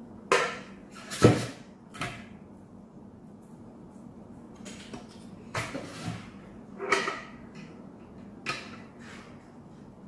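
Hard plastic humidifier water tank being handled and opened: a series of short knocks and clatters, the sharpest about a second in and a cluster around six to seven seconds.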